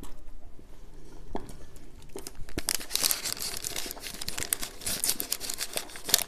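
Snack-bar wrapper crinkling and crackling as it is handled, quiet at first with a few clicks, then dense crinkling through the second half.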